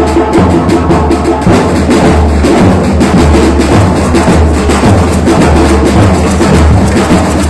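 Batucada percussion band playing: deep bass drums pulse under a dense rhythm of snare drums and other percussion.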